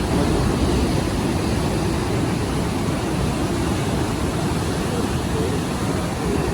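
Strong wind buffeting the microphone: a loud, steady, rushing rumble.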